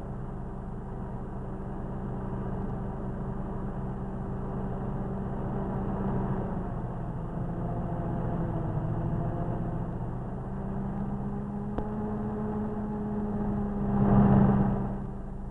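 Motor coach engine running steadily, its pitch shifting a little, then swelling loudly near the end as the coach passes close.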